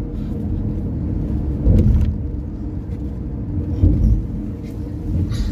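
Car driving, heard from inside the cabin: a steady low rumble of engine and road noise, with two dull thumps about two seconds apart.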